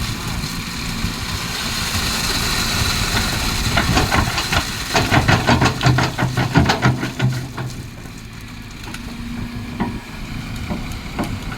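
Kobelco excavator's diesel engine running, with a louder run of rapid clanking knocks about four seconds in that lasts some three seconds before the engine settles quieter.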